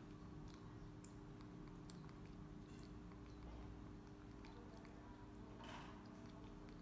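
Faint wet clicks of a baby macaque chewing soft food and smacking its lips, over a low steady hum.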